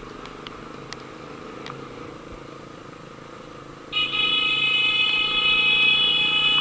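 A vehicle horn sounds one steady, high-pitched blast for about three seconds, starting about four seconds in. Before it, the low steady engine and road noise of a moving vehicle.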